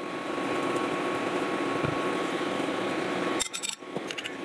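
Garlic clove rubbed and pressed against slices of oiled bread in a metal baking pan, making a steady scraping rasp that stops suddenly about three and a half seconds in. A few light clinks follow, as of a spoon against metal.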